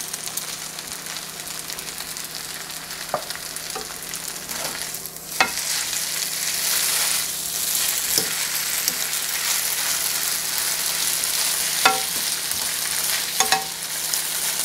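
Rice noodles and scrambled egg sizzling in freshly added oil in a nonstick wok as they are stir-fried with a spatula and fork. The sizzle grows louder about five seconds in, and the utensils click against the pan a few times.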